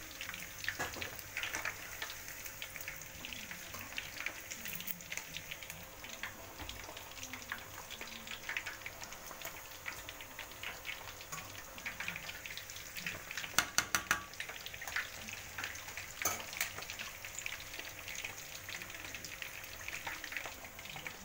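Chicken pieces deep-frying in a wok of hot oil: steady sizzling and crackling of the bubbling oil, with a few sharper clicks a little past the middle.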